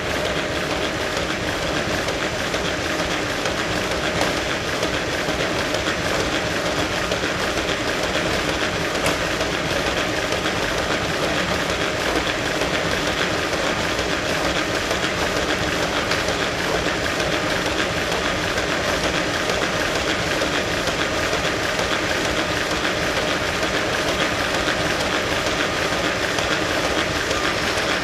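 Ice skating treadmill running steadily, its wide moving belt and drive making a continuous, even rushing noise.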